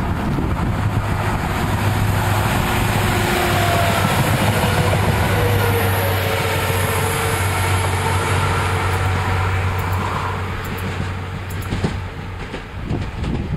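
Regional diesel multiple unit passing close by: a steady low engine drone with wheel and rail noise, its pitch dropping as it goes past, then fading as it pulls away after about ten seconds.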